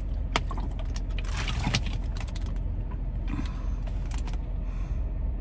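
Plastic water bottle being drunk from and handled, with scattered clicks and crinkles of the plastic, over a steady low rumble in the car cabin.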